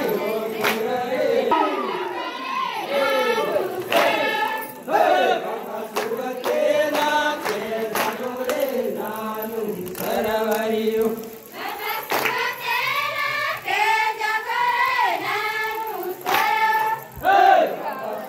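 Many voices singing and chanting together in overlapping, bending lines of a folk dance song, with sharp hits now and then.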